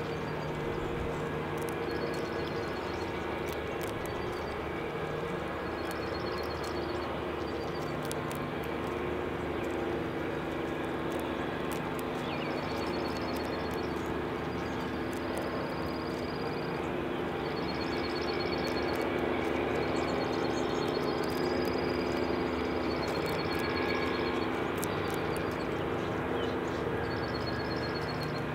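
Outdoor ambience under a steady low hum, like distant vehicle noise. A short high trill repeats every couple of seconds, with faint sharp clicks scattered throughout.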